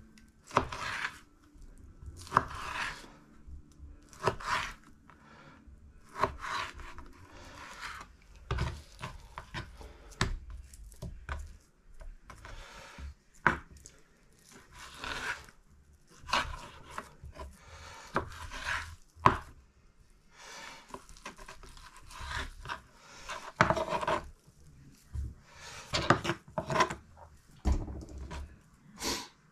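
Kitchen knife slicing raw pork chops on a wooden cutting board: irregular strokes of the blade through meat and fat, with occasional sharper knocks of the knife on the board.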